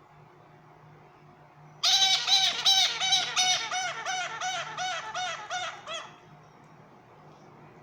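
A pet parrot calling a rapid series of about fourteen repeated, arched squawks, some three or four a second, starting about two seconds in. They grow fainter and stop about six seconds in.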